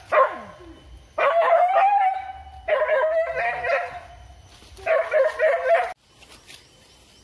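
Boar-hunting dog giving three drawn-out cries of about a second each, with a short one right at the start.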